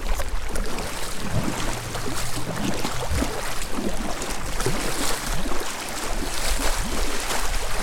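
Strong wind buffeting the microphone over choppy water splashing and sloshing around a kayak as the paddle dips in.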